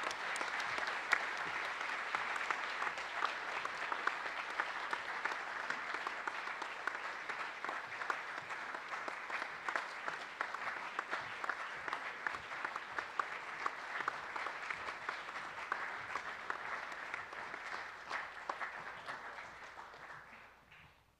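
Audience applauding: dense, steady clapping that fades and dies away near the end.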